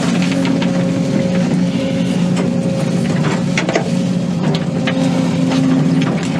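Excavator's diesel engine running steadily under load while the bucket digs beside a tree to cut its roots, with scattered knocks and cracks from the digging.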